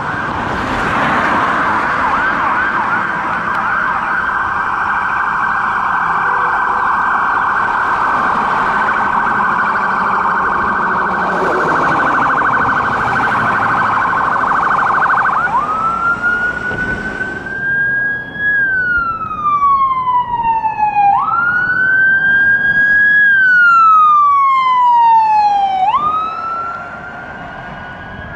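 Ambulance siren on emergency response: a rapid, fast-warbling yelp for about fifteen seconds, then a switch to a slow wail that rises quickly and falls off slowly, about every five seconds.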